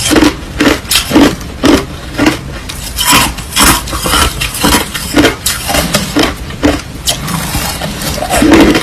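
Crushed ice crunching between the teeth, close to the microphone, in a steady run of sharp crunches about two a second.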